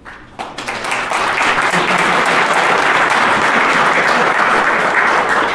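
Audience applauding: the clapping swells within the first second, holds steady, and begins to fade near the end.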